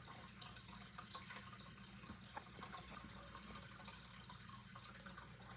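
Near silence: faint steady electrical hum with a scatter of faint small ticks.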